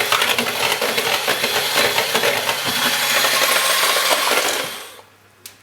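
Electric hand mixer running loud as its beaters whisk flour-and-milk pancake batter in a bowl; it is switched off about five seconds in.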